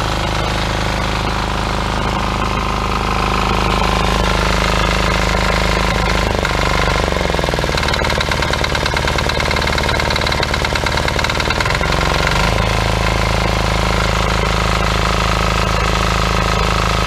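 178F single-cylinder air-cooled diesel engine, a Yanmar clone, running steadily. About six seconds in its speed drops as the throttle lever is eased back, and about twelve seconds in it picks back up to its higher speed.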